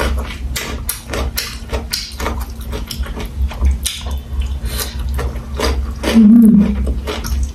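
Close-miked mouth sounds of eating: crisp crunching and wet clicks of chewing raw vegetables, many in quick succession. About six seconds in comes a short, loud hummed 'mm' from the eater.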